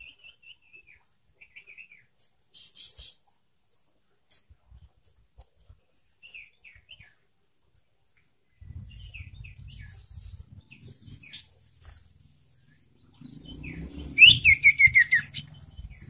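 Young common iora calling: scattered short chirps and buzzy notes, then near the end a loud quick run of notes falling in pitch. A low rumble runs underneath from about halfway.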